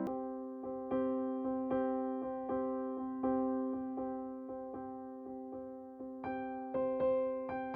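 Background music: a soft electric-piano tune of steady repeated notes, each struck and fading, about three a second.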